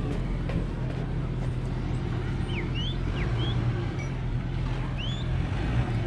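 Steady low engine drone from nearby motor traffic or machinery, with a few short bird chirps over it in the middle.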